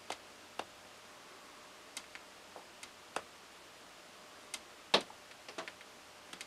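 Faint, irregular small clicks and ticks, about a dozen, scattered over quiet room tone, with the loudest click about five seconds in.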